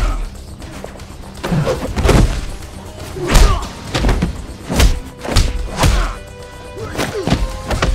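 Dubbed-in punch and kick impact sound effects of a hand-to-hand fight: about nine hard thuds at an irregular pace, some close together, over background music.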